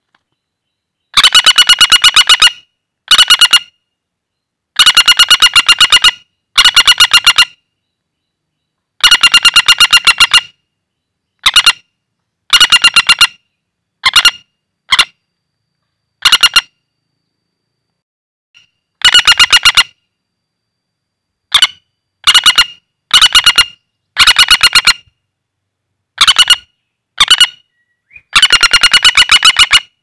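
Common flameback woodpecker held in the hand, calling in loud, rapid rattling trills, each a fraction of a second to about a second and a half long, with short gaps between and one longer pause midway.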